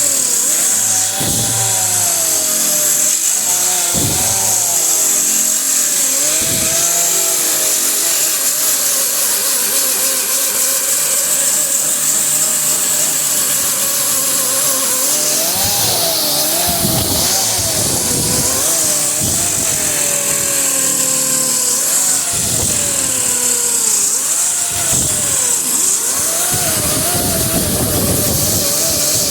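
Handheld power tool spinning a paint-stripping disc against a car fender, taking the old paint and primer down to bare metal. The motor whine dips and recovers again and again as the disc is pressed into the paint, over a steady high hiss of abrasion.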